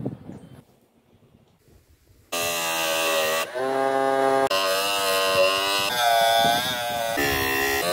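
Small DC-motor disc sander whining with a buzzy, many-toned sound that starts abruptly a little over two seconds in, its pitch shifting and sagging as a PVC block is pressed against the abrasive disc. A short rubbing of PVC on sandpaper comes just before it, at the start.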